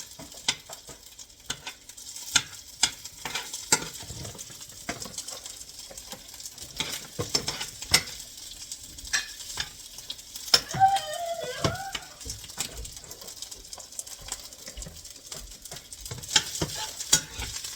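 Rice frying in oil in a pan, a steady sizzle, with a utensil stirring it and clicking and scraping against the pan again and again.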